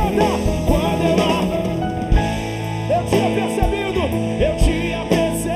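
Live band playing a gospel worship song, with drum kit, electric guitar and singing over it.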